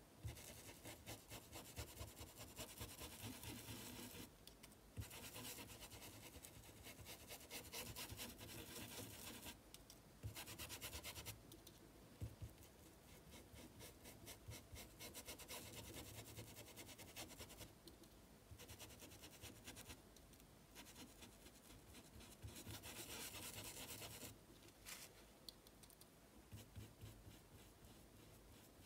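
Faint scratchy strokes of a paintbrush scrubbing paint into cotton fabric stretched on a board. The strokes come in runs of a few seconds, with short pauses between them.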